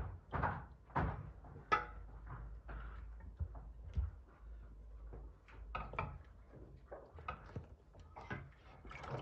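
Irregular knocks and clatter of cookware and utensils, a couple of strokes a second, while boiled hens are lifted out of their pot and handled. A low steady hum runs underneath.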